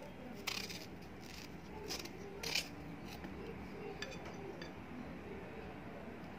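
Kitchen knife cutting peeled raw green mango held in the hand, a handful of short crisp cuts and light clicks against the plate, spaced irregularly.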